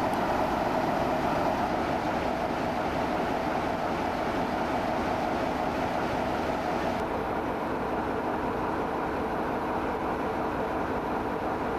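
A train running with a steady, even rumble and no distinct beats or whistles.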